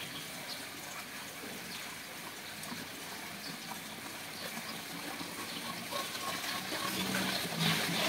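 Steady rushing background noise, like running water, with no bird calls; a few faint tones come in near the end.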